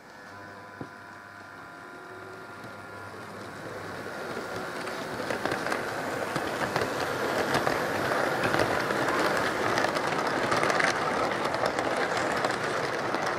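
OO gauge model train, two Class 66 locomotive models hauling passenger coaches, running past at track level: the motor hum and the rattle of wheels on the rails grow louder over the first several seconds, then hold steady with small clicks over the rail joints.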